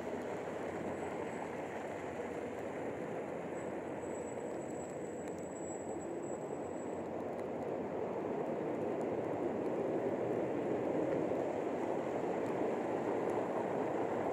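Steady road noise of a car driving on a wet, slushy street, tyres hissing through the slush, picked up by a camera mounted outside on the car; it grows a little louder about halfway through.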